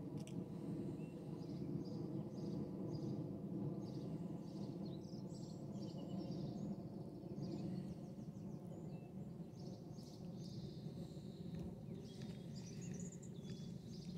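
Birds chirping on and off over a steady low hum of outdoor background noise.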